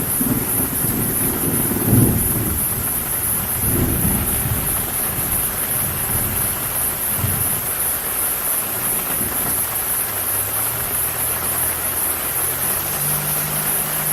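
Steady rain falling, with thunder rumbling low through the first half. Near the end a passing car's engine hum comes in, rising in pitch as it approaches. A steady high-pitched hiss sits over everything.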